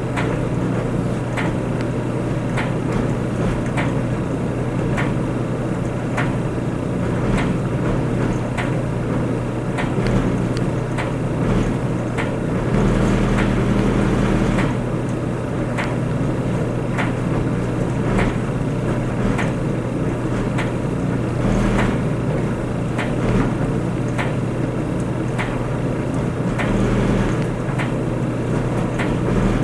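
Clothes dryer running: a steady motor hum and whir from the turning drum, with irregular light clicks and knocks as the load tumbles.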